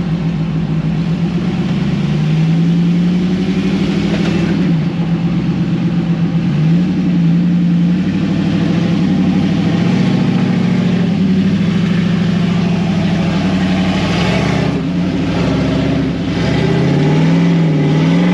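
Off-road 4x4's engine running under load and revving up and down several times in pitch, as on a trail obstacle.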